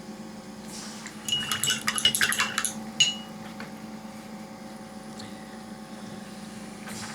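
A quick run of light clinks and taps on glass, with a short ringing note, like a paintbrush rattled in a glass rinse jar, about a second in, then one more click. A steady low hum runs underneath.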